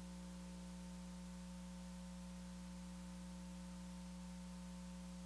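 Low, steady electrical hum with a faint hiss and no other sound.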